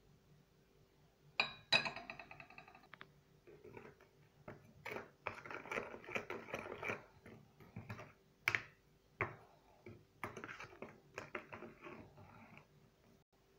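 Metal spoon stirring and mashing fresh yeast in water inside a plastic container: a ringing clink about a second and a half in, then irregular scraping and clicking of the spoon against the container, with a couple of sharper taps.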